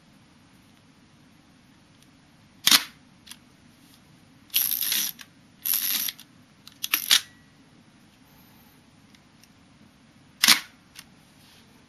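Hasselblad 1000F medium-format camera being worked by hand: a sharp clack of the shutter and mirror firing about three seconds in, then two longer rasping strokes like the film-winding knob being turned, a few small clicks, and another sharp clack near the end.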